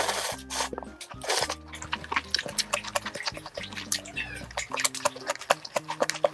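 Squid ink ramen noodles being slurped and chewed in close, wet mouth sounds, with many sharp clicks. Background music with steady low notes plays underneath.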